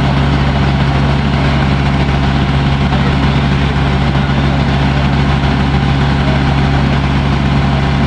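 Water taxi's engine running steadily while under way, a loud, even low hum with no change in speed.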